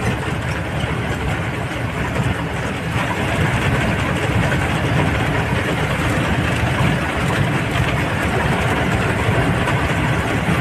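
A vehicle's engine running on the move, with steady road and wind noise, getting slightly louder about three seconds in.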